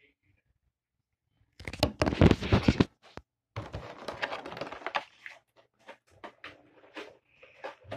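Rustling and crackling of plastic packaging being handled close to the microphone. There is a loud rustle about two seconds in, then softer crackling and a few scattered clicks.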